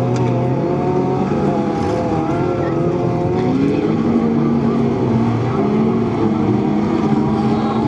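Engines of several autocross race cars revving hard at once, their overlapping pitches rising and falling as the drivers accelerate and lift.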